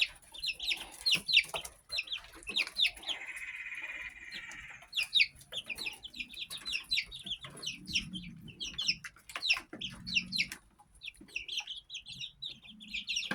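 A group of young chickens peeping, many short, high, falling calls coming rapidly and overlapping, with a steadier trilling call for about two seconds around three seconds in.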